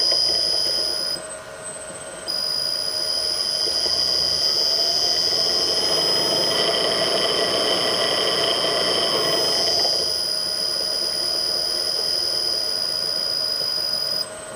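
Millport/Bridgeport mill motor running on rusted, worn-out ball bearings, giving a steady high-pitched squeal with a rougher rushing noise swelling in the middle. The squeal drops out for about a second shortly after the start and cuts off suddenly near the end.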